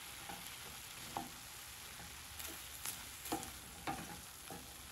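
Ground-beef picadillo with potato and onion sizzling in a pan as it is stirred, with a steady frying hiss and a few scrapes and taps of the stirring utensil against the pan.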